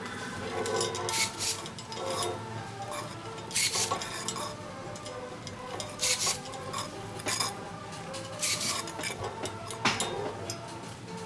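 A handheld electric ring-bending tool closing metal rings around tomato stems and their support strings. It makes a short, sharp burst about every one to two seconds, six in all, over leaves brushing against the tool and the worker's gloved hands.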